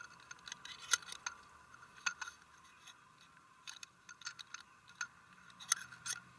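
Scattered light clicks and ticks of scuba gear and cameras being handled in a dive skiff under way, over a faint steady hum.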